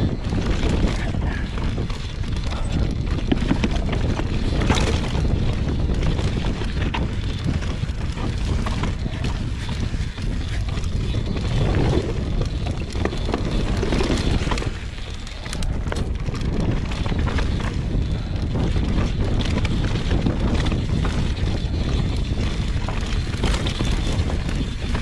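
Mountain bike running fast down a dirt singletrack: steady wind rush on the microphone with tyre noise and rattling clicks from the bike over rough ground. The tyres roll over wooden boardwalk planks about halfway through.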